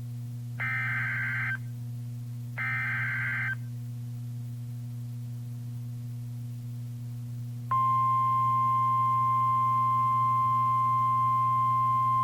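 NOAA Weather Radio Emergency Alert System activation. The last two of three SAME header data bursts, each buzzy and about a second long, come a second apart. After a pause of about four seconds, the steady single-pitch Weather Radio warning alarm tone starts and holds; it signals that a warning, here a flash flood warning, is being broadcast. A steady low hum from the receiver runs underneath.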